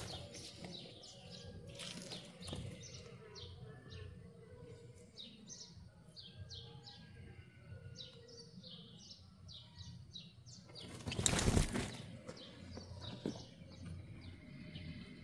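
Small birds chirping over and over, in short quick notes, with a few bursts of rustling noise, the loudest about eleven seconds in.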